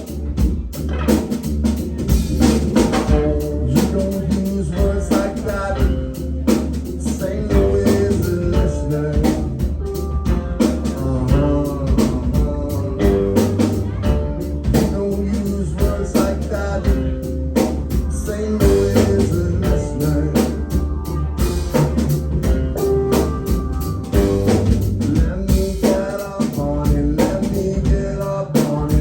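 Rock band playing live, with a drum kit keeping a steady, driving beat under bass and other instruments.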